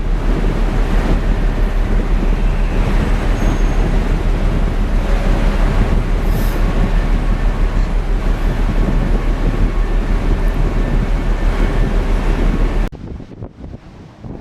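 Loud, steady rumbling noise of wind and sea in a storm, with a constant low hum underneath. It cuts off abruptly near the end, leaving much quieter wind noise.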